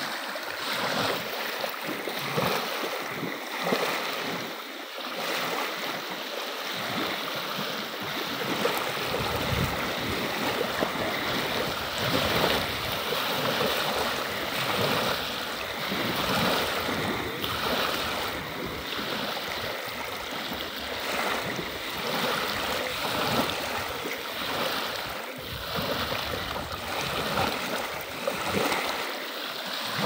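Small wind-driven waves lapping and splashing over the gravel edge of a lake, in a continuous wash. Low rumbles of wind buffeting the microphone come and go, mostly in the middle stretch.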